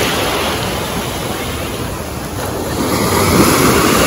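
Small surf waves washing in over a shallow beach, with wind buffeting the microphone. The rush of water eases about halfway through and builds again near the end.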